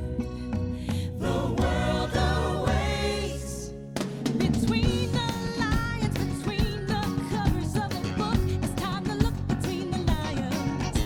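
Upbeat music with singing voices; after a short dip about four seconds in, the song moves into a new, busier section.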